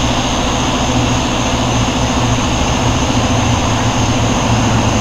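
A steady low mechanical hum with a constant hiss over it, unchanging throughout.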